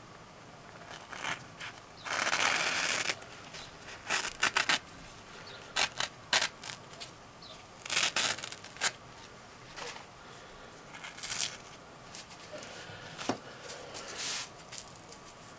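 Thin paper napkin rustling and crinkling in the hands as a freshly sharpened knife blade slices through it, testing the edge's sharpness. A string of short rustles and snips, with one longer rustle of about a second a couple of seconds in.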